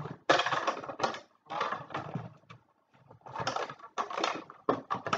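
Rubber bands being stretched and wrapped around an empty cardboard tissue box, the box being handled in several short bursts of rustling and knocking with brief pauses between them.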